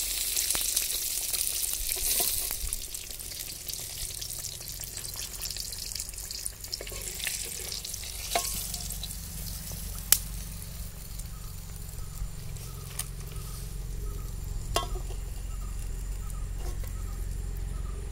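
Chicken pieces deep-frying in hot oil in a wok, a dense sizzle that is loudest in the first few seconds and then eases off. A few sharp metallic clicks from the slotted spoon knocking against the wok come about 8, 10 and 15 seconds in.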